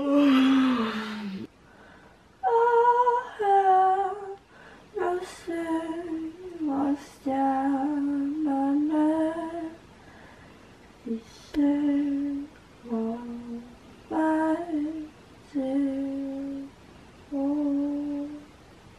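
A woman humming a slow tune without words, in short held phrases with brief pauses between them. The first phrase slides down in pitch.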